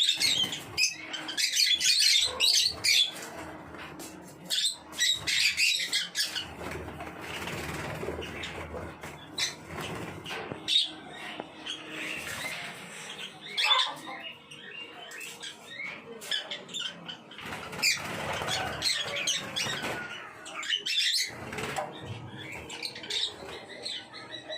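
A flock of African lovebirds fluttering and flapping their wings, with frequent sharp chirps and squawks. The flapping and calling come in clusters and are busiest in the first few seconds.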